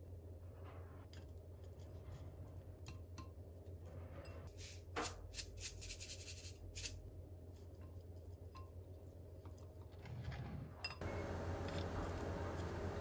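Wooden utensils clinking and scraping against a glass bowl as bean sprouts are tossed, with a run of quick sharp clicks about five to seven seconds in from a hand grinder twisted over the bowl. From about eleven seconds a steadier hiss takes over.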